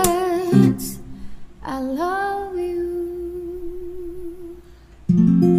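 Background music: a voice sings, holding one long wavering note, then an acoustic guitar chord is strummed near the end.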